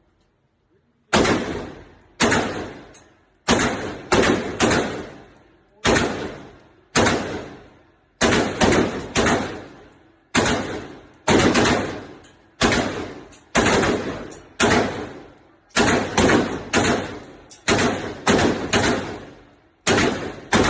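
Daniel Defense AR-15 rifle firing in steady semi-automatic shots, about thirty in all, spaced unevenly from half a second to over a second apart, each shot trailing off in a ringing echo.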